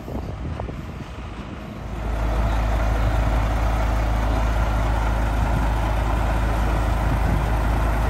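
Road vehicle running, a steady low rumble with road noise that comes in and grows louder about two seconds in.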